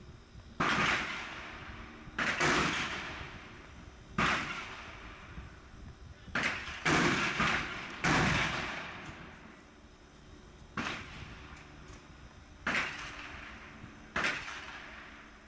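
Gunshots: about nine single shots at uneven intervals, each a sharp crack followed by a fading echo.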